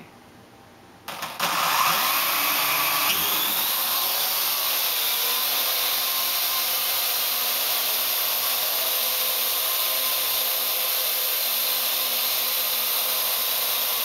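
Parrot AR.Drone quadcopter's four electric motors and propellers starting up about a second and a half in as it lifts off, then a steady high whir while it hovers.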